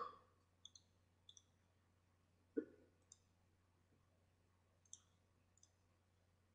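Faint computer mouse clicks, several spread over a few seconds, with one slightly louder, duller knock about two and a half seconds in.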